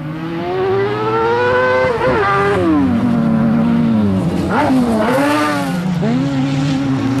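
Racing buggy engine at high revs on a dirt autocross track, pitch climbing under acceleration and dropping sharply on gear changes or lifts about two seconds and again about four seconds in. It revs up briefly twice more, then holds a steady pitch near the end.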